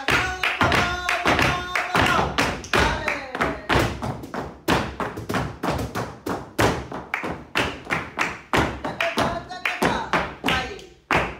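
Flamenco dance shoes stamping and tapping on the floor in fast, uneven footwork rhythms of a bulería in 12/8, with a voice held over the strikes in the first few seconds and again near the end.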